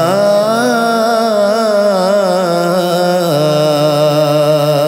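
Male voice singing a naat, drawing out a long wordless note with wavering ornaments; the pitch steps down and holds about three seconds in.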